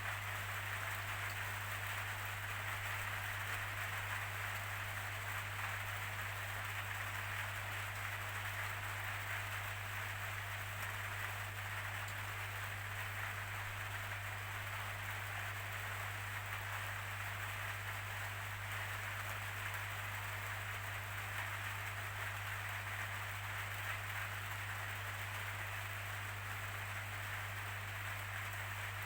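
Steady rainfall, an even unbroken hiss, with a constant low hum underneath.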